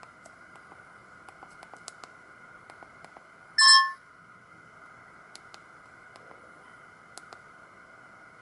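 Samsung GT-E2120 mobile phone's speaker giving one short, loud beep of about a third of a second, a little over halfway through, over a faint steady whine and scattered faint ticks.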